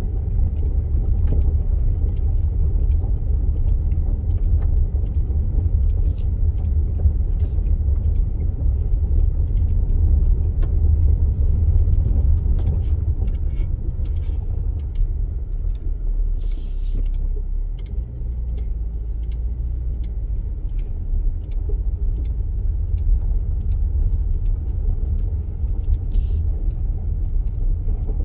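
A vehicle being driven, with a steady low rumble of engine and road noise. Scattered small ticks and knocks run through it, with two brief hissing sounds, one a little past the middle and one near the end. The rumble eases slightly after the middle.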